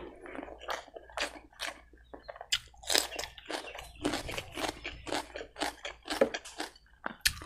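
A person chewing a mouthful of boiled pork and basmati rice close to the microphone: a run of irregular crunches and mouth clicks, about three or four a second.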